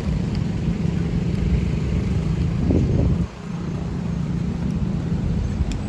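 Steady low rumble of city street traffic. It swells just before three seconds in and drops off sharply a little after.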